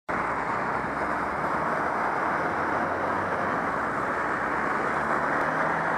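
Steady rushing wind and road noise on a cyclist's camera microphone while riding, with a faint low hum underneath.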